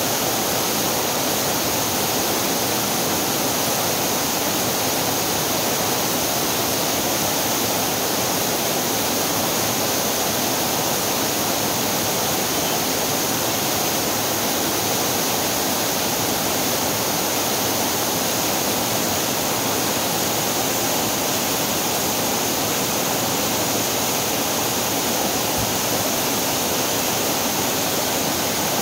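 Rain-swollen waterfall pouring into a rocky stream: a loud, steady rush of falling and churning water.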